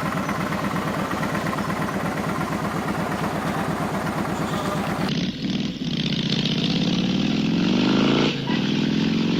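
V-twin cruiser motorcycle engine idling with an even, rapid pulsing beat. About five seconds in, after a cut, it is accelerating away, its pitch rising, with a brief drop near the end as it shifts up a gear.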